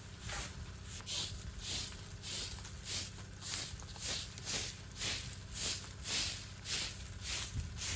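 Footsteps walking at a steady pace, a short crunch about one and a half times a second.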